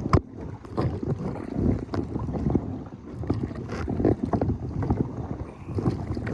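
Wind buffeting the microphone with low, uneven rumbling and knocks from the kayak on the water, and a sharp click right at the start.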